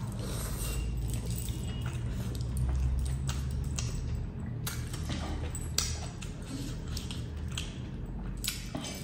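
Stacked metal bangles and rings clinking and jingling in many quick, irregular clicks as a bare hand scoops and mixes rice and curry, over close-miked chewing.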